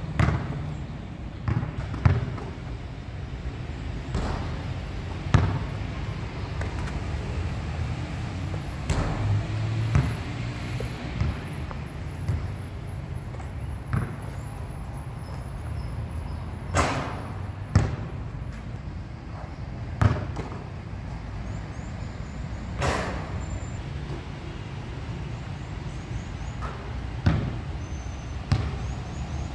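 Basketball bouncing on a hard outdoor court and striking the hoop: sharp separate hits a second or a few apart, two of them ringing on longer. A steady low rumble runs underneath.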